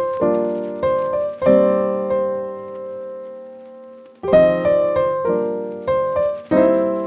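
Background piano music: a run of chords struck about half a second apart, one chord left ringing and fading for a couple of seconds near the middle, then another quick run of chords.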